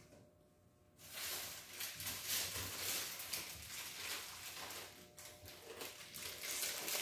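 Items being rummaged through and handled in an open refrigerator: irregular rustling of plastic-bagged bread and packages, starting about a second in.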